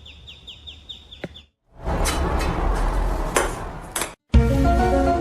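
A rapid series of high chirps, about six a second, cut off abruptly; then loud clattering noise with sharp clicks and knocks; then music begins about four seconds in.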